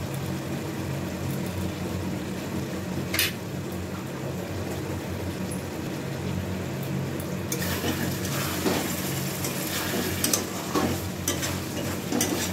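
Pointed gourds in a thick gravy sizzling over a low gas flame in a steel kadai, just topped with ghee. There is a single clack about three seconds in, and from about halfway a metal spatula stirs and scrapes against the pan with repeated clicks and a louder sizzle.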